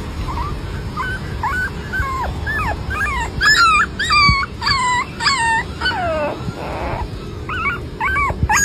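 Small puppy whimpering and crying in a long series of short, high, falling whines, loudest about halfway through.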